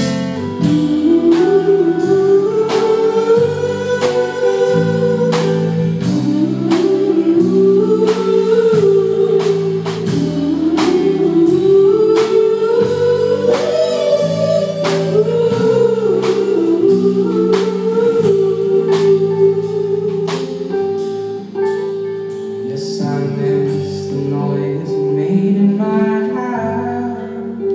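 Live rock band playing an instrumental passage: a steady drum beat and guitar chords under a melody line that glides up and down.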